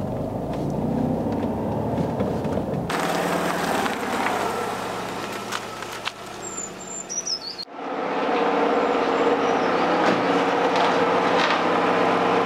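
Alfa Romeo 145 Cloverleaf's four-cylinder Twin Spark engine running on the move, heard from inside the cabin. The sound cuts suddenly about three seconds in to outdoor background, and again near eight seconds to a steady mechanical hum.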